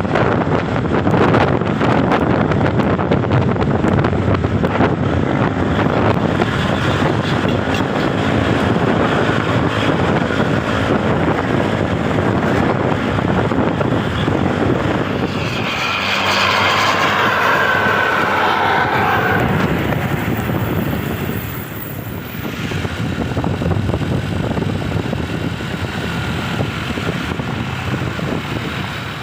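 A bus and traffic moving on the road, a steady rush of engine and wind noise. Just past the middle, a telolet basuri horn plays a wavering multi-tone melody for about four seconds.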